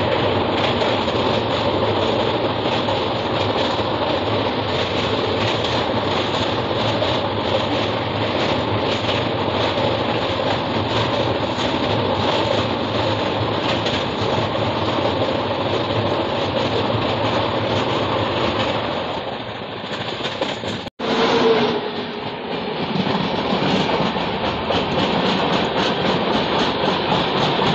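A passenger train running at speed, heard from an open coach door: a steady, loud rumble and clatter of wheels on rails. After a sudden break about 21 s in, a second train passes close by on the adjacent track.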